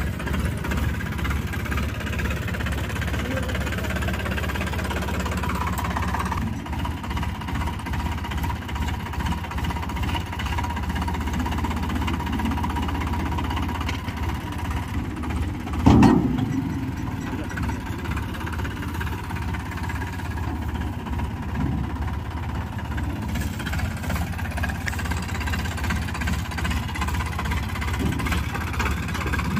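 Sonalika DI-745 III tractor's diesel engine running steadily at low speed. About halfway through there is a single sudden loud bang that dies away over about a second.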